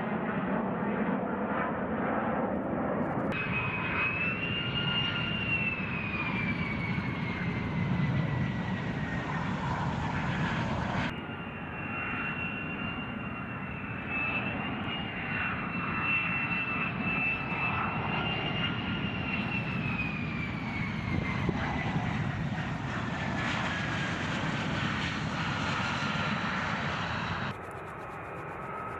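F-35A Lightning II fighters' single F135 turbofan jet engines: a steady rush with a high whine over it that slowly falls in pitch as the jets fly past and come in to land. The sound changes abruptly a few times, about 3 s, 11 s and 27 s in.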